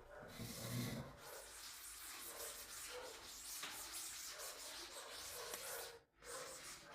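Hand scrubbing of a surface during household cleaning, a steady rubbing hiss, with a dull knock about half a second in and a short break near the end.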